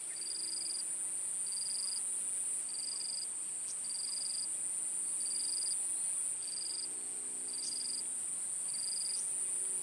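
Insects calling in chorus: a steady high-pitched buzz, with short chirps repeating about once a second.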